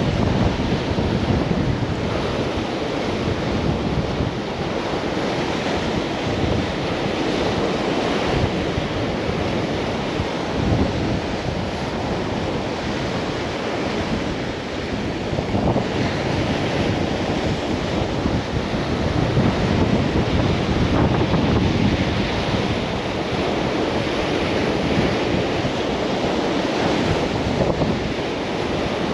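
Sea surf washing steadily over a rocky shore, a continuous rushing of breaking waves, with wind buffeting the microphone.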